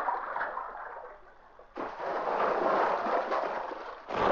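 Cartoon water sound effect: a noisy splashing, gurgling rush that fades away. A second rushing noise cuts in suddenly a little under two seconds in and runs on, fading near the end.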